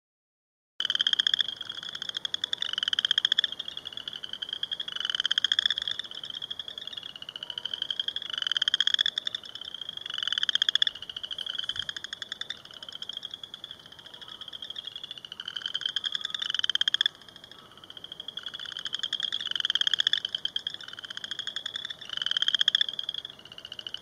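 A chorus of chorus frogs calling: rapid, rising pulsed trills about a second long each, several frogs overlapping one after another, starting about a second in.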